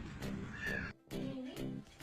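Background music with a steady beat, cutting out for an instant about halfway through and then carrying on.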